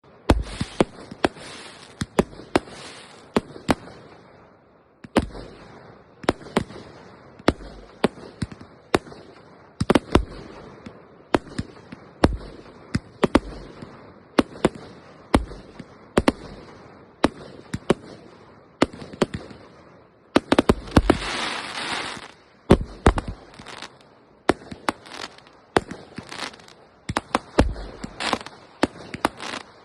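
Fireworks display: aerial shells bursting in a rapid run of sharp bangs, each trailing off into crackle and echo. About two-thirds of the way through, a denser burst of hissing crackle stands out.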